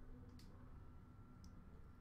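Near silence: room tone, with two faint clicks.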